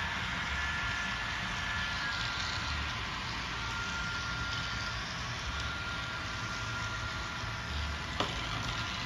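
N scale model double-stack container train running past on the layout: a steady running noise with an uneven low rumble and a faint high whine. A single sharp click about eight seconds in.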